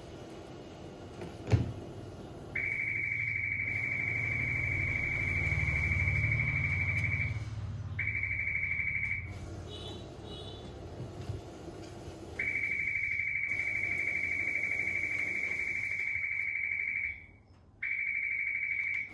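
Hashima conveyor needle detector's alarm buzzer sounding a steady high-pitched tone in four stretches, two of them about five seconds long, with short breaks between: the shoe carrying a test needle card has set off the detector. A single sharp knock comes about a second and a half in, before the first alarm.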